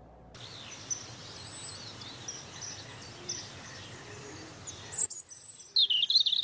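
Birds chirping over a steady hiss of outdoor ambience. The background drops out about five seconds in, and a louder warbling bird call follows near the end.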